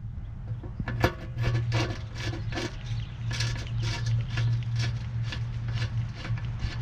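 Hand work on the metal air filter housing of a Mercedes W126 300SD: short scraping and rubbing strokes, about three a second, starting about a second in, over a low steady hum.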